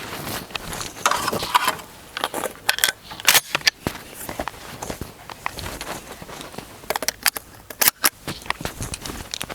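Scattered sharp metallic clicks and short rattles of a shotgun and its shells being handled between shots, with no shot fired.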